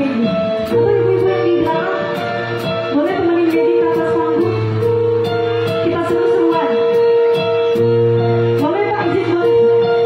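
Live band playing a song: a singing voice over electric guitar and bass, with the drums keeping a steady beat on the cymbals.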